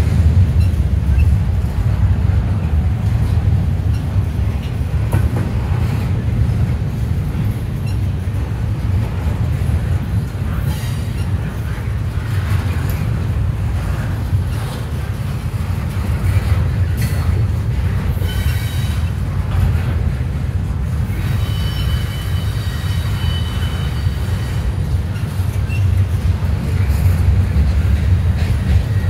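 Double-stack intermodal container train rolling past: the well cars give a steady heavy rumble with wheel noise. A high wheel squeal rises over it at times, loudest for a few seconds about two-thirds of the way through.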